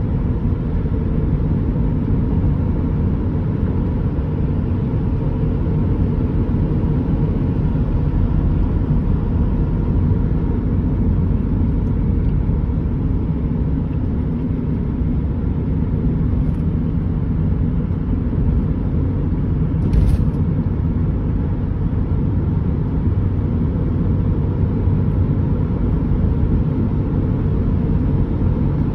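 Steady road rumble from inside a moving vehicle: tyre and engine noise, with a single short knock about two-thirds of the way through.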